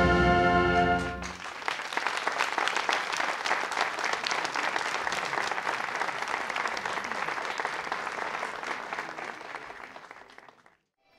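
Wind band holding its final chord, which cuts off about a second in; then outdoor audience applause that fades out near the end.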